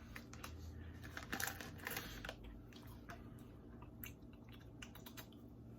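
Someone chewing small puffed corn snacks, a quiet irregular run of soft crisp crunches and clicks, busiest in the first couple of seconds.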